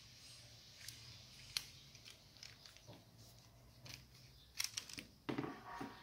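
Faint clicks and scrapes of an Opel/Vauxhall ignition lock cylinder and its small metal parts being handled, with a sharp click about a second and a half in and a cluster of clicks and rustling near the end.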